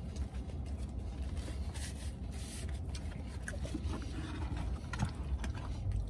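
A man chewing a mouthful of burger, with a few faint mouth clicks and paper rustles, over a steady low vehicle rumble heard inside a truck cab.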